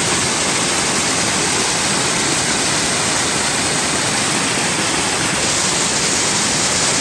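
Rainbow Falls, a mountain waterfall, giving a loud, steady rush of falling and splashing water with no breaks.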